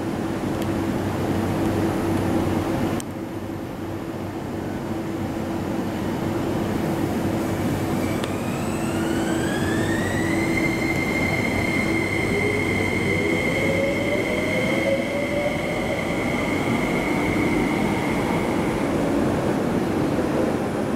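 MTR IKK-train electric multiple unit pulling out of the platform. A steady hum comes first, then from about eight seconds in the traction motors' whine rises in pitch and levels off, and a second, lower whine climbs as the train gathers speed, over steady running noise.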